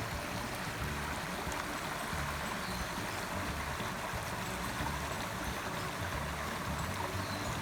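Small stream running steadily over its bed, an even rushing and babbling of water.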